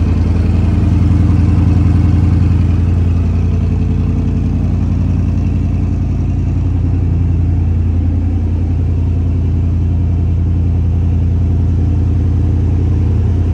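Koenigsegg Regera's twin-turbo 5.0-litre V8 idling steadily with a deep, bass-heavy note, a little louder for the first few seconds before settling.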